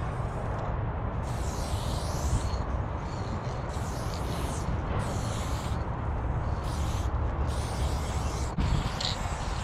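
Aerosol spray-paint can hissing in about six bursts, each half a second to a second long, as it paints an outline onto a freight car's steel side. A steady low rumble runs underneath.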